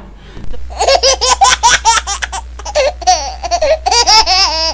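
Long bout of high-pitched laughter in quick repeated bursts, with a steady low hum underneath.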